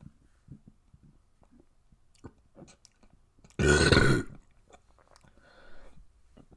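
A person burping once: a single loud, rough belch lasting under a second, about halfway through. Faint clicks come before it.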